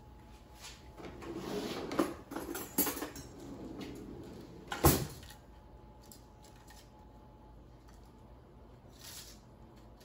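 Metal kitchen tongs and a fork clicking and scraping on a parchment-lined baking sheet while lifting cooked bacon strips off it, with a few sharp clacks, the loudest about five seconds in.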